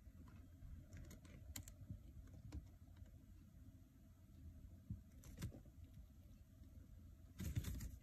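Faint scattered clicks and light rustling from metal tweezers and hand-feeding a young swift, with a louder cluster of clicks and rustle near the end as the bird moves its head.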